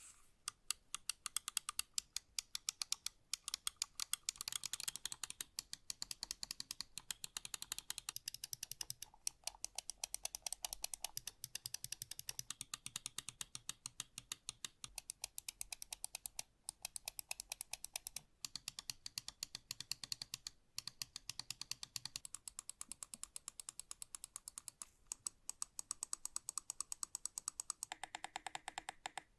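Razer Naga Pro gaming mouse being clicked in a rapid, steady stream of sharp plastic clicks, about eight to ten a second, with a few brief pauses.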